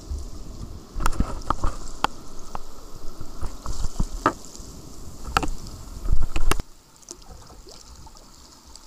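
Sea kayak being paddled through choppy water: paddle strokes splashing and knocking against the hull roughly once a second, over a low rumble that stops suddenly about two thirds of the way in.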